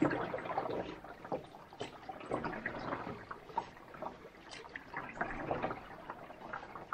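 Canoe paddle strokes: water swishing and dripping off the paddle blade, coming in repeated swells with small drips and splashes between them.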